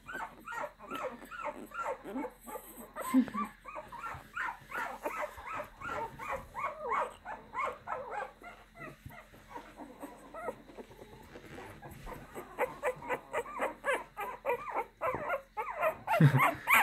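Two-week-old bully-breed puppy whimpering and squealing in a rapid string of short, high cries, several a second, fussing at being handled.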